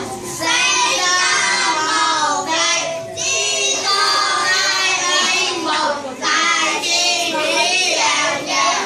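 A group of children singing together in sung phrases, with short breaks about three and six seconds in.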